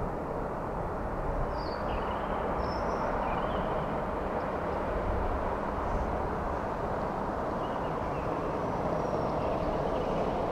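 Steady jet engine noise of a twin-engine Boeing 787 climbing away after takeoff, with a few faint high chirps over it.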